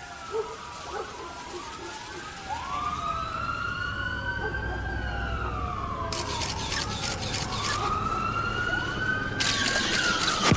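Several police sirens wailing together, each rising slowly in pitch and sliding back down, over a low rumble. Two short bursts of hiss come about six and ten seconds in.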